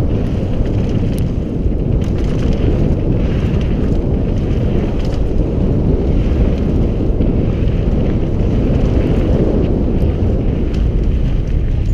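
Wind buffeting a helmet camera's microphone, with tyres rumbling over loose dirt as a mountain bike descends at speed. A few sharp clicks and rattles from the bike stand out.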